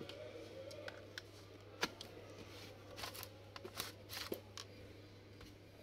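Faint clicks and taps of a screwdriver and fingers on a laptop's plastic bottom case, scattered and irregular, the sharpest a little under two seconds in and a cluster a few seconds in. A steady low hum lies underneath.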